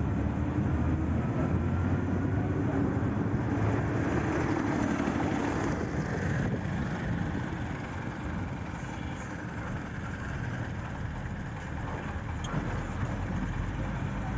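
Motor vehicle engine running on the road with road noise. A low engine hum, rising slightly in pitch, fades after about six seconds, leaving a steady rumble.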